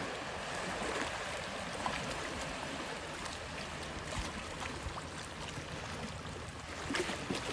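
Steady rushing water noise, like surf or a stream, with a few faint clicks.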